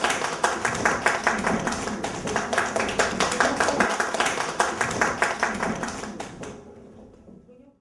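Audience applauding: dense, even clapping that dies away near the end.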